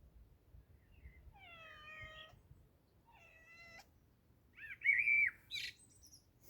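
A domestic cat meowing twice, two drawn-out mews. These are followed by a louder, higher-pitched call about five seconds in and a few short, high bird chirps near the end.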